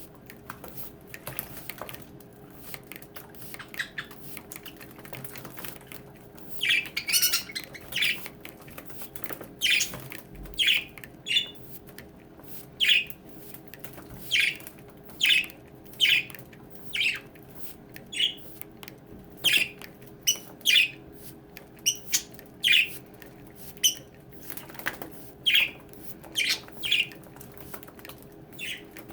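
Pet budgerigars bathing, with short bursts of chirping and wing-flapping in water that repeat about once a second after the first few seconds.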